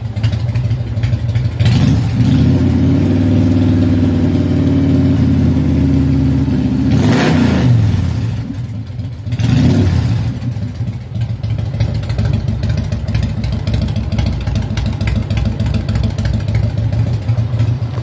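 Motorcycle exhaust through baffled dual pipes: the engine idles, is revved up about two seconds in and held, blipped again around seven and ten seconds, then settles back to a steady idle.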